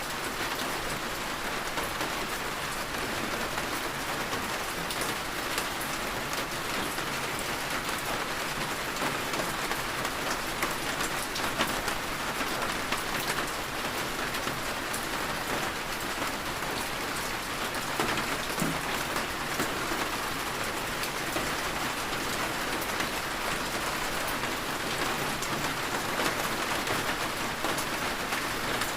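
Heavy rain falling steadily: a dense, even hiss with single drops tapping sharply here and there.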